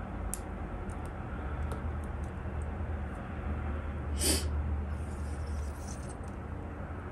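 A deck of tarot cards being shuffled by hand: scattered light clicks of cards and fingernails, one louder rush of cards about four seconds in, then a softer rustle, over a low steady hum.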